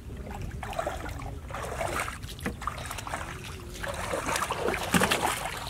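Water splashing and sloshing in the flooded bottom of a wooden boat as hands move through a pile of freshly caught fish, with irregular small splashes and knocks against the hull, busier near the end.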